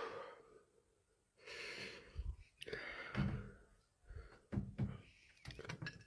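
A man breathing heavily in and out through his mouth, three or four long hissing breaths, from the burn of eating Carolina Reaper peppers. Soft knocks and clicks are heard between the breaths and near the end.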